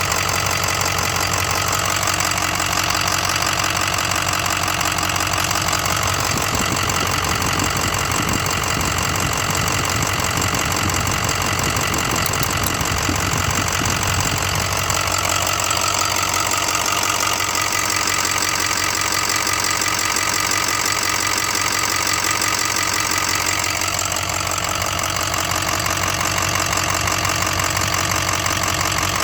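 2006 Ford 6.0 Powerstroke V8 turbo-diesel idling with a steady, rapid ticking or knocking, which the owner cannot place as lifter tick or rod knock.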